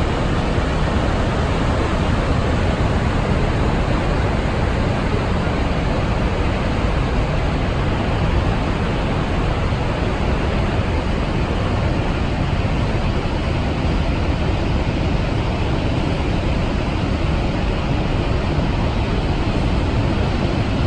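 Steady, unbroken rush of falling water from Niagara Falls, a loud even wash of noise with no changes.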